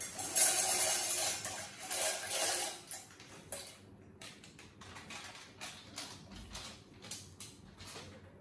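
Plastic packet of dry macaroni crinkling as the pasta is tipped out into a steel pot, a dense rustling rattle for the first few seconds, then a run of light irregular clicks and taps.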